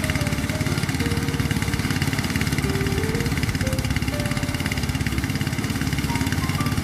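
A small engine running steadily at constant speed with a fast, even chugging pulse, typical of machinery working a rice harvest. Faint melody notes sound underneath.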